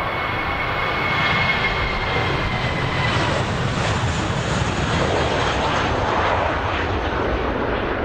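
Airbus A321-231's IAE V2500 turbofan engines at takeoff power as the airliner departs. A steady jet rumble carries a high fan whine that sinks slightly in pitch; it grows louder over the first second or so, then holds.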